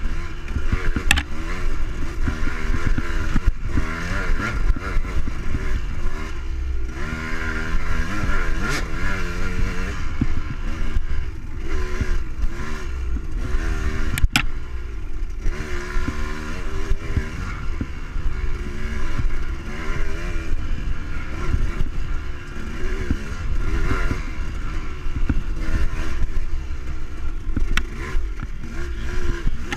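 Dirt bike engine heard up close from an on-board camera, revving up and down over and over as the bike is ridden through a tight trail, under a constant rumble of bumps and wind on the microphone. Two sharp knocks stand out, one about a second in and one about fourteen seconds in.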